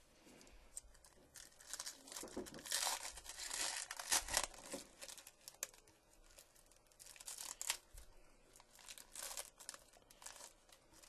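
Clear plastic shrink-wrap torn and crumpled off a trading-card box by hand, crackling in irregular bursts, loudest a few seconds in and again near the end.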